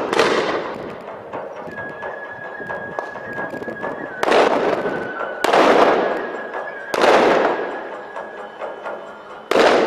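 Miniature cannons on model sailing warships firing in a mock battle: four loud bangs about a second or two apart in the second half, each dying away over about a second.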